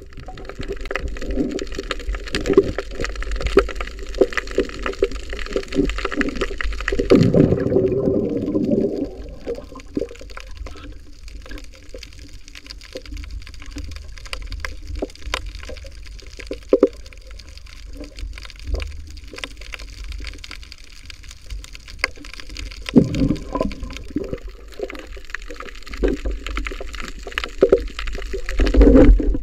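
Underwater sound around a spearfisher swimming with a speared fish: water washing and gurgling against the underwater camera, with many scattered small clicks and louder surges of swirling water about seven seconds in and again near the end.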